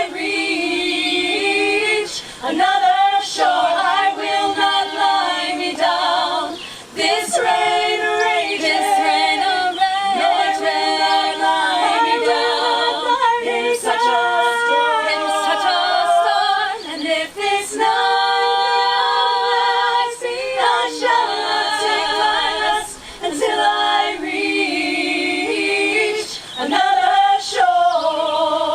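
A group of female voices singing a cappella in harmony, with vibrato on the held notes and short breaks between phrases.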